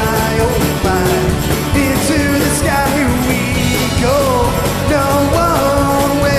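A live band playing a rock-and-roll song, with singing over a steady beat.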